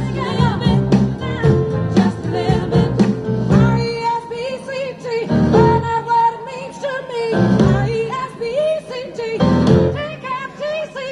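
Pop song with a singer over the band, played over the sound system for dancing; the bass and beat drop out for stretches in the middle, leaving the voice more exposed.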